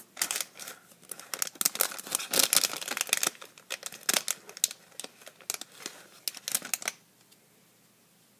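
Clear plastic bag crinkling as it is handled: a rapid, irregular run of crackles and rustles that stops about seven seconds in.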